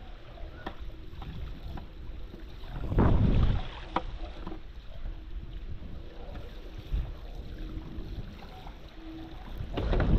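Wind buffeting the microphone over water rushing past a stand-up paddleboard foiling at sea. There are louder gusts about three seconds in and near the end, and a few sharp clicks.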